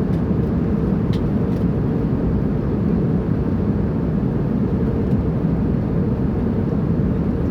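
Steady low rumbling drone of an airplane in flight, with two faint clicks about a second in.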